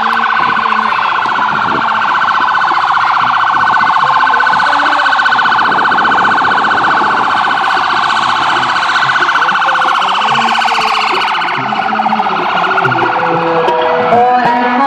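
Police car siren sounding a rapid warbling yelp, steady for most of the stretch and then fading after about eleven seconds. Music with shifting notes comes in near the end.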